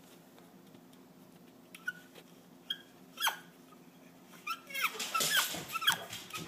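A squeaky toy squeezed repeatedly: a few single high squeaks that fall in pitch, then a quick run of squeaks with some rustling near the end.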